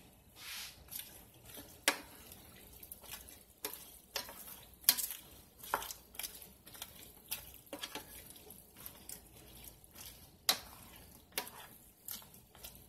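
A cooking spoon stirring cut vegetables in a stainless steel sauté pan, with irregular clacks and scrapes of the spoon against the pan.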